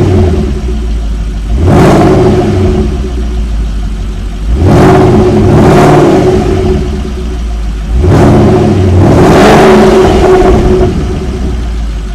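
Porsche Panamera Turbo's 4.8-litre twin-turbo V8, breathing through an aftermarket Hamann exhaust with centre tailpipes, revved three times and dropping back to idle between blips. Each rev rises quickly and falls away, and the last is held longest.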